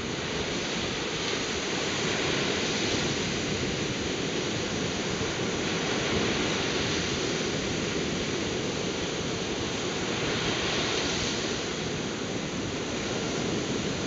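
Ocean waves breaking on a sandy beach: a steady rush of surf.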